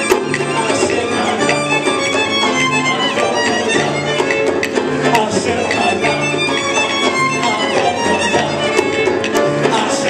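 Salsa music with a violin playing the lead over a repeating bass line and sharp percussion hits.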